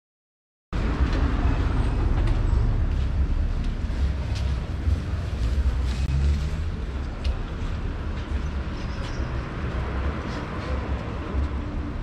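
City street ambience: a steady low rumble of traffic with general outdoor noise, cutting in abruptly about a second in.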